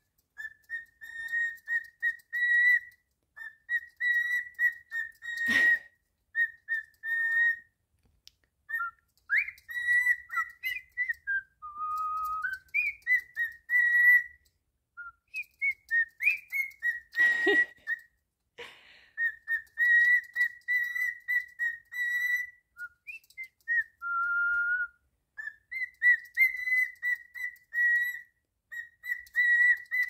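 Cockatiel whistling: a long string of short, clear notes, most at the same pitch, some sliding up and down and a few pitched lower. Two sharp knocks cut in, about a fifth of the way in and again past the middle.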